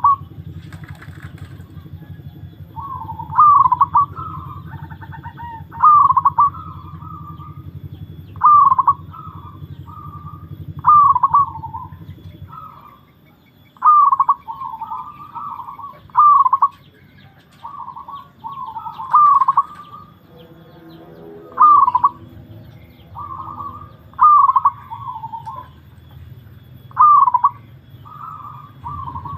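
Zebra dove (perkutut) cooing: a short phrase of several quick coos, repeated about every two and a half seconds. A low steady hum runs under it and drops away for several seconds midway.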